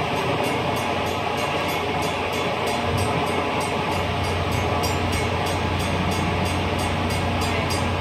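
Metra bilevel commuter coaches rolling past close by, with a steady rumble of wheels on rail; a low hum grows a little stronger about halfway through.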